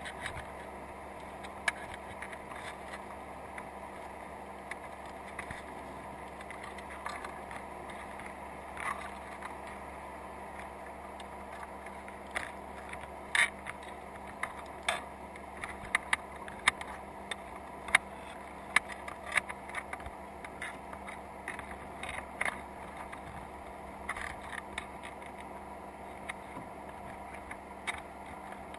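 Underwater sound from a camera on a crab trap: a steady hum and hiss with irregular sharp clicks and taps, most of them in the middle stretch.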